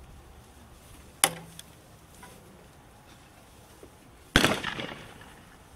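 Two shotgun shots about three seconds apart: a sharp crack a little over a second in, then a second report with a long fading tail.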